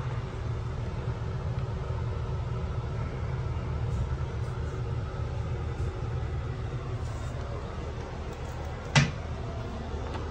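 Steady low rumble of restroom background noise, with one sharp click about nine seconds in.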